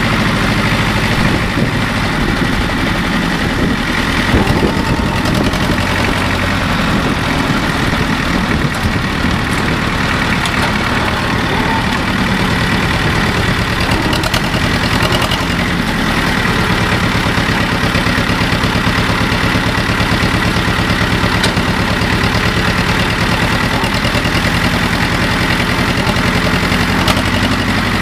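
Engine of a 1998 Hardy diesel tractor running steadily.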